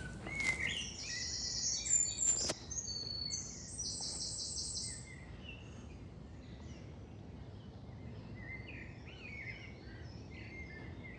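Wild songbirds singing: a close bird delivers a rapid song of quickly repeated high notes for about the first five seconds, then it stops and fainter chirping from other birds carries on.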